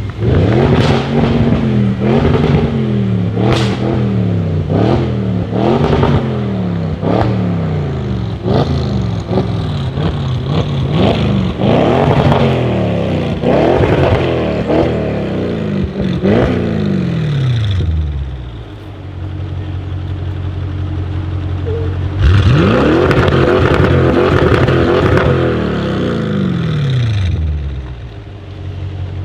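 Audi RS6 C7's twin-turbo 4.0 V8 through a straight-piped Milltek exhaust, blipped over and over in quick revs about once a second with sharp crackles between them. It then settles to a steady idle, and a few seconds later is held at high revs for about five seconds before dropping back to idle.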